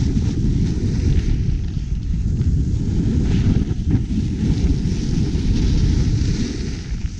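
Wind buffeting the microphone of a camera moving fast downhill, a heavy steady rumble, over the hiss of sliding and carving on packed, groomed snow that swells and fades with each turn.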